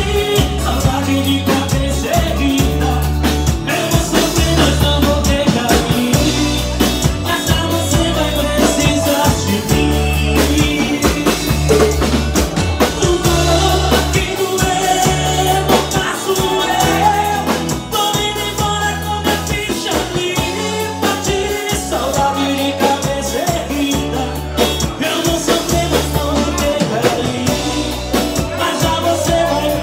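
Live band music: an acoustic-electric guitar and a drum kit playing a steady rock beat over a repeating low bass line.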